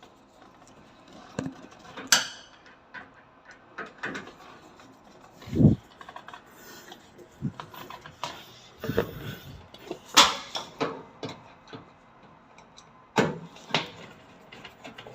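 Screws being driven in to fasten the cover panel of an Ariston washing machine: scattered clicks, scrapes and knocks of the screwdriver and panel, with a duller thump about halfway.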